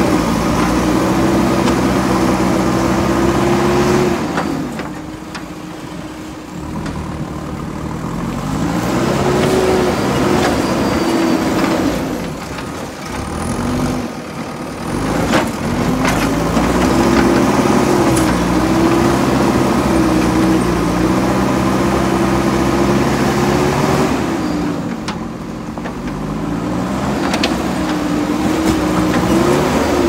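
JCB 3DX backhoe loader's diesel engine working under load, its revs climbing and dropping back several times as the machine drives its loader bucket through loose dirt. A few sharp knocks are heard along the way.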